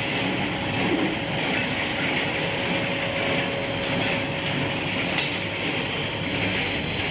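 Industrial egg breaking and yolk separating machine running: a steady mechanical rattle from its cup conveyor, with a faint steady tone underneath.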